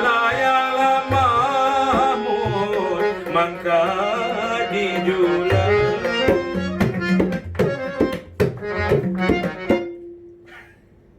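Malay ghazal music: tabla drum strokes under a sustained, wavering melody line. The music ends and fades out about ten seconds in.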